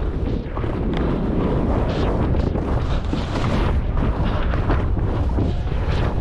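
Heavy wind buffeting on the skier's body-mounted camera microphone during a fast ski descent, mixed with the repeated hiss and scrape of skis turning through snow.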